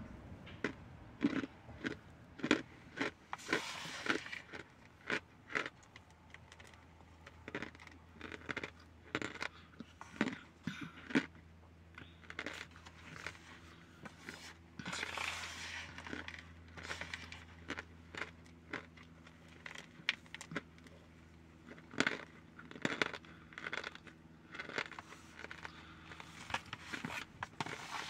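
Cornstarch crunching in many short, irregular crisp crunches as it is squeezed in the hands and chewed.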